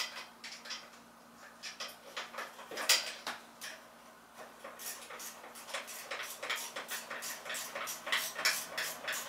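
Metal clicks and clinks of hand tools being worked on a scooter: scattered knocks at first, then a denser, fairly even run of clicks, several a second, from about halfway.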